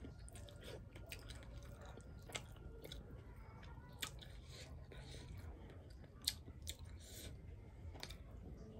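Close-up chewing of a mouthful of rice and fried fish, with wet mouth smacks and a few sharp clicks, the loudest a little over six seconds in.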